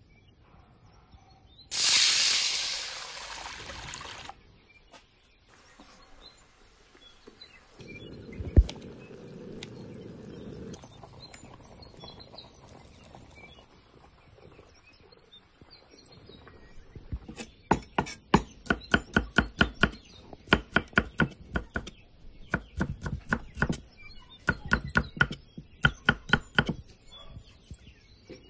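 A kitchen knife chopping shallots and garlic on a wooden cutting board, in quick runs of about three or four strokes a second through the second half. Earlier there is a loud hiss about two seconds in lasting a couple of seconds, and a single thump near the middle.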